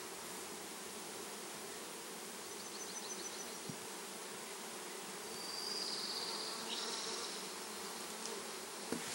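Italian honeybees buzzing steadily around a hive box into which a package of bees has just been shaken, growing a little louder in the middle.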